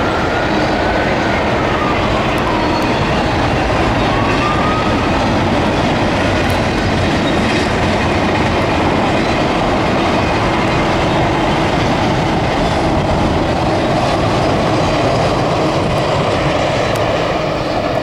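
Double-stack container cars of a freight train rolling past, a loud, steady rumble of wheels on rail. A faint squeal glides up and down twice in the first five seconds, and the sound begins to fade near the end.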